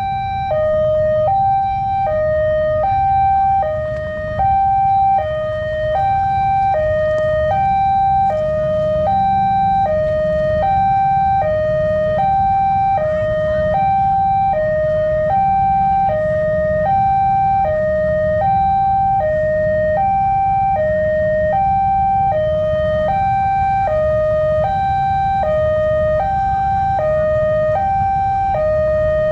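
Indonesian railway level-crossing warning siren sounding its two-tone E-flat 5 and G5 alternation, a steady high-low pattern of about one pair a second, which warns that a train is approaching and the crossing is closed. A low steady rumble runs beneath it.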